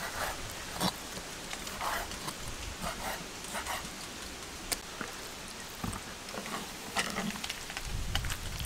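A kitchen knife on a wooden cutting board: irregular soft taps and scrapes as squid is scored and sliced, over a steady background hiss, with one sharper click about halfway through.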